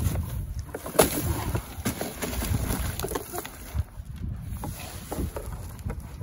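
Scuffling and thuds of two people wrestling on a snowy trampoline mat, with a sharp knock about a second in and a few softer knocks after it.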